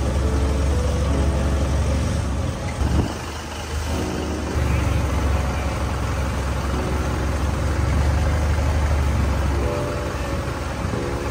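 An engine running steadily with a strong low drone, its note dipping briefly about three seconds in.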